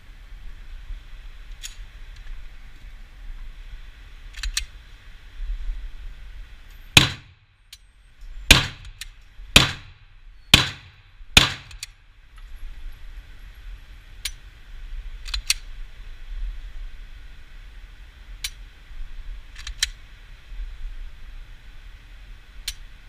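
Glock 17 9 mm pistol fired five times in quick succession, about a second apart. Fainter sharp cracks come before and after the string.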